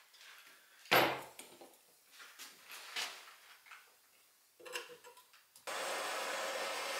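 A few knocks and rubs of a torch and copper fittings being handled on a wooden workbench, the loudest about a second in. About five and a half seconds in, a propane hand torch lights and hisses steadily as its flame heats a copper elbow joint on a baseboard heater element for soldering.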